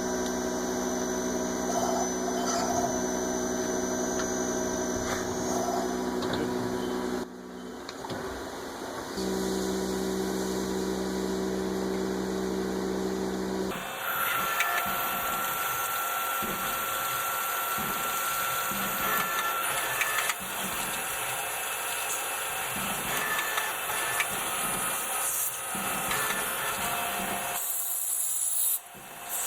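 A workshop machine tool's motor running steadily, its pitch shifting from shot to shot, with noisier cutting sounds in the later part.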